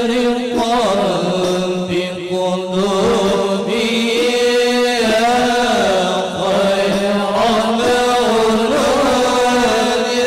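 Background music: an Arabic devotional chant (sholawat in praise of the Prophet), sung in long held notes that waver and bend without a break.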